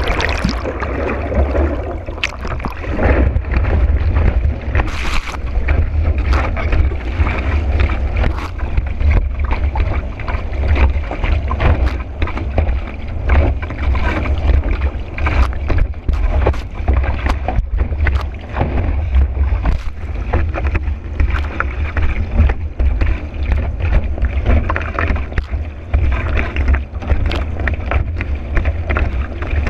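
Water rushing and hissing under a board skimming fast over choppy sea, with frequent short slaps as the hull hits the chop. Under it, a steady heavy wind rumble on the board-mounted microphone.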